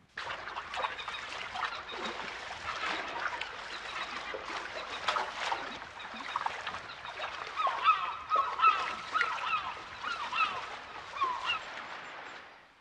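Birds calling over a steady wash of wind and water. In the second half comes a run of short, clipped calls, many in quick succession.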